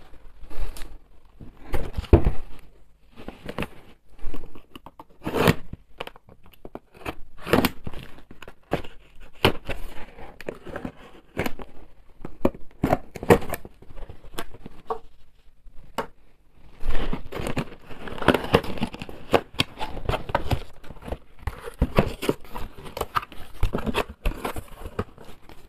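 A cardboard parcel being opened by hand: packaging tearing and crinkling, with many short sharp clicks and knocks, turning into denser, steadier rustling about two-thirds of the way through.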